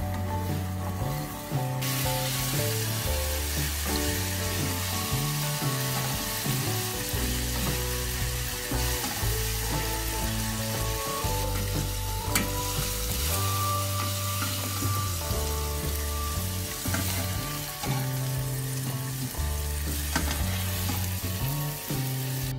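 Strips of beef sizzling as they fry in a pan, stirred and turned, with the sizzle growing louder about two seconds in and one sharp click of a utensil about halfway through. Background music with a bass line plays underneath.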